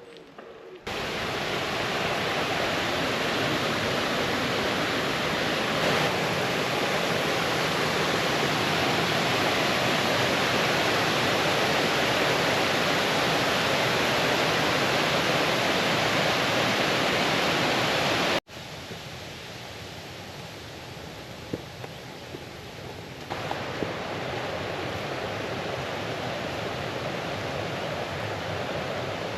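Fast brook water rushing and cascading over stones, a steady, even rush. About 18 seconds in it cuts abruptly to a quieter stretch of flowing water, which grows louder again a few seconds before the end.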